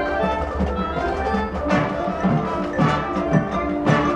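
High school marching band playing its field show: held chords from the horns over front-ensemble mallet percussion, with sharp drum strikes landing a few times.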